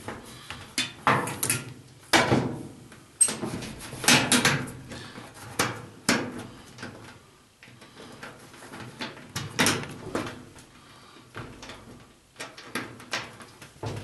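Irregular clicks and knocks of a three-wire dryer power cord's wire ends and metal parts being handled against the dryer's sheet-metal back panel as the wires are fitted onto the terminal block. A few louder knocks stand out, about two, four and nine and a half seconds in.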